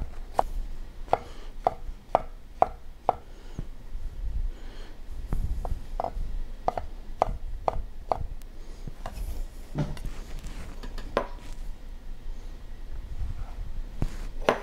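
Chef's knife chopping celery and then mushrooms on a wooden cutting board: sharp knocks of the blade on the board, about two a second, thinning out to a few scattered knocks after about eight seconds.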